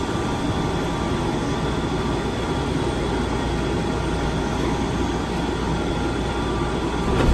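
Inside a rubber-tyred automated people-mover car: a steady rumble and hum as the train comes to a stop at a station platform, with a short clunk right at the end as the doors begin to open.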